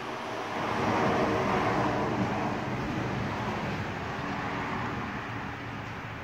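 A road vehicle passing by: its sound swells about a second in, then fades slowly over the next few seconds.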